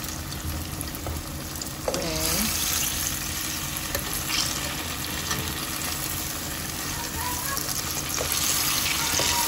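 Battered banana fritters deep-frying in hot oil in a pan, a steady sizzle that grows louder about two seconds in, with occasional clicks of metal tongs turning the fritters against the pan.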